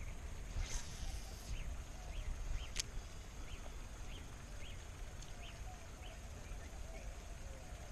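Wind rumbling on the microphone, with short bird chirps repeating about twice a second in the background and a single sharp click about three seconds in.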